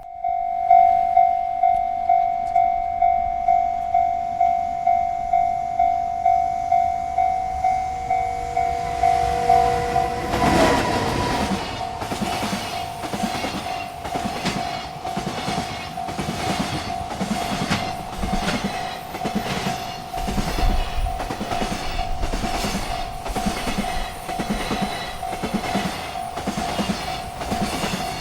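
Railroad crossing bell ringing steadily at about two strikes a second. About ten seconds in, a freight train arrives with a rush of noise, and its cars roll past with a rhythmic clickety-clack of wheels over the rail joints while the bell keeps ringing.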